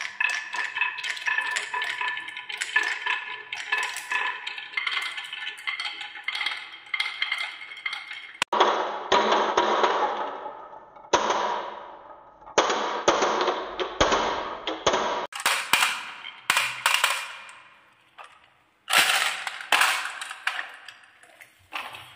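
Plastic balls rolling and clattering down a wooden marble run: dense clicking with a ringing tone for the first eight seconds or so, then several separate runs along a wavy wooden track, each starting suddenly and fading away over a second or two.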